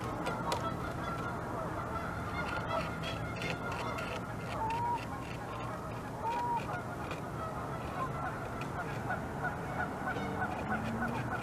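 A beaver gnawing through a branch, its teeth scraping wood in a quick run of short clicks, while geese honk in the background, with two clearer calls near the middle.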